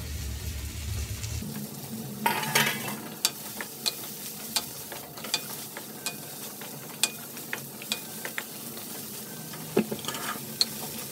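Sliced green beans, red capsicum and carrots sizzling in a hot stainless steel wok while being stir-fried, with frequent sharp clicks and scrapes of a wooden spoon against the pan, loudest just after two seconds in.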